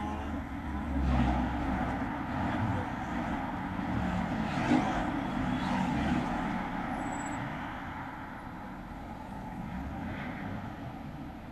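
City street traffic: a steady rumble of cars, with a few vehicles passing close by and swelling louder about a second in and again around five to six seconds.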